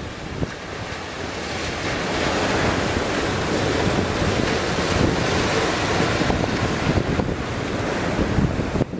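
Sea surf breaking at a river mouth, with strong wind buffeting the microphone; the rushing noise swells about two seconds in and stays loud.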